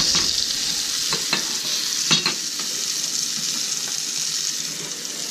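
Oyster mushrooms searing in butter in a stainless steel skillet: a steady high sizzle with a few sharp crackles, the loudest about two seconds in, easing slightly near the end as the heat is turned down.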